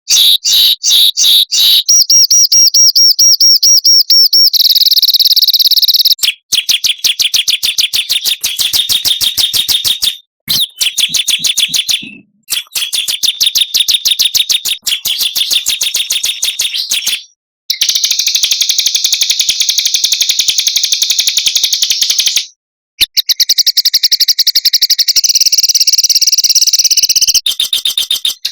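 Small songbirds' loud, very rapid trills and chattering strings of high notes, edited into a bird-tutor (masteran) recording for training cage birds. The segments cut off abruptly and change five times.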